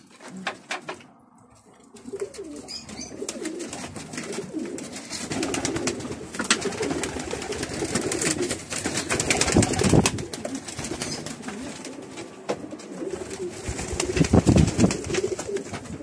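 Domestic pigeons cooing in a loft, with many sharp clicks and rustles. Near the end comes a louder flurry of wing flapping and scuffling as a pigeon is grabbed by hand.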